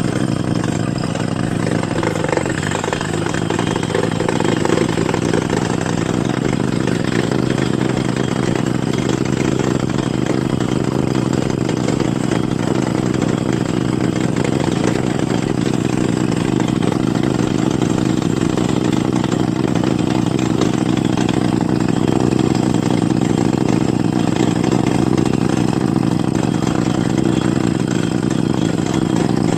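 Heavy rock drilling machine running steadily in a continuous loud mechanical drone, its pitch shifting slightly about six seconds in.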